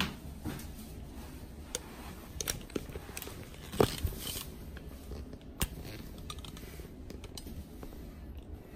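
Handling noise from a camera being set in place: scattered small clicks, taps and rustles, with one sharper knock about four seconds in.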